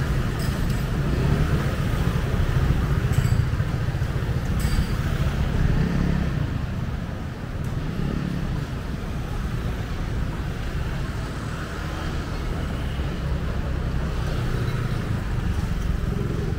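Busy street ambience: a steady rumble of passing road traffic, with a few light clicks in the first five seconds.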